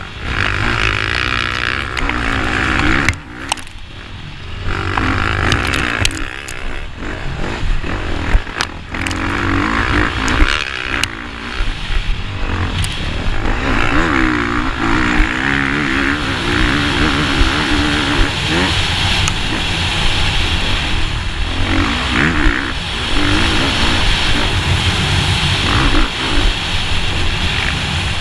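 A dirt bike engine ridden hard on a motocross track, revving up and down with the throttle, with a brief drop in revs about three seconds in. Sharp knocks and clatter from the bike hitting ruts and bumps come through over the engine.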